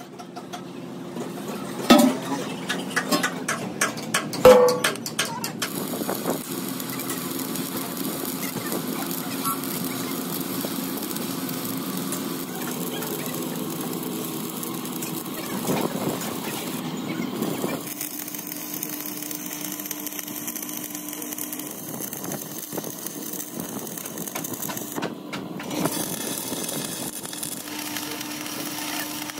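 Stick welding on steel plate: the steady crackle and sizzle of the electric arc. Before it, in the first few seconds, come a few sharp metal clanks as the plates are set in place.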